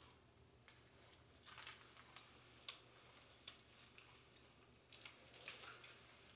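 Near silence: a faint steady low hum with about ten faint, irregularly spaced clicks.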